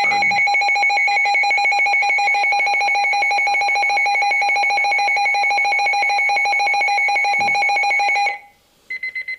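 Emergency alert attention tone: a loud, steady electronic alarm tone that holds for about eight seconds and cuts off abruptly. It is followed near the end by a few short, high beeps.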